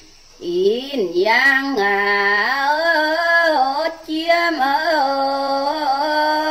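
A woman singing a Red Dao (Iu Mien) folk song, pá dung, in the Dao language, unaccompanied. Her held notes slide and bend. She comes in about half a second in, breaks off briefly near the middle, and holds a long steady note near the end.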